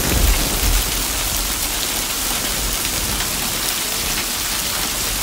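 Hail and heavy rain pelting gravel, grass and a wooden deck: a dense, steady hiss dotted with fine ticks of hailstones. A low rumble sounds in the first second.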